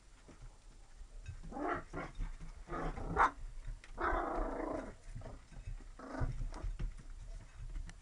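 Lab-retriever mix puppies growling in a run of short rough bursts, the longest lasting nearly a second about halfway through.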